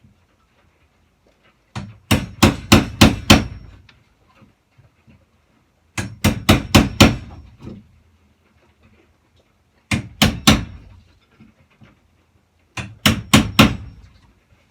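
Hammer driving a chisel into a wooden door jamb to cut out a notch: four bursts of several quick blows each, with short pauses between.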